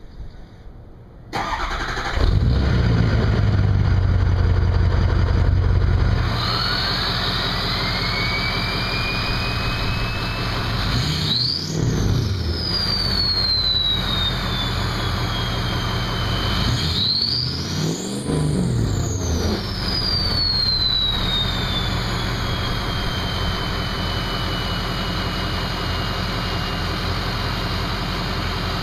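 Ford 6.0L Powerstroke V8 turbo diesel starting up about a second in and settling to idle, its turbo whistle rising in pitch as it spools. The engine is revved twice; each time the whistle climbs sharply, then falls slowly as the turbo spools down, easing to a steady high whistle at idle.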